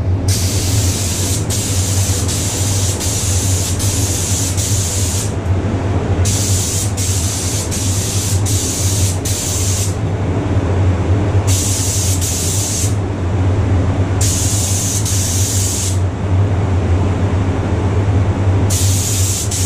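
Compressed-air gravity-feed spray gun hissing as it sprays a coat onto a fiberglass tailcone, in about five bursts of one to five seconds with short breaks between. A steady low hum runs underneath.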